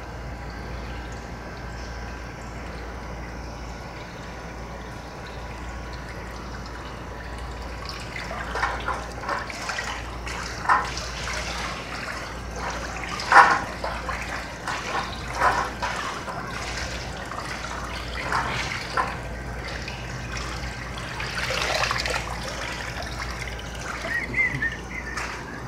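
Water in a hydrographic dipping tank sloshing and splashing in irregular bursts as a dash bezel is worked under by hand, then lifted out with water running off it near the end. A steady low hum lies underneath, and for the first several seconds it is almost the only sound.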